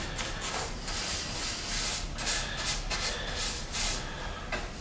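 Nylon paintbrush stroking acrylic latex paint onto the bevelled profile of a cabinet door: a run of short, scratchy brush strokes.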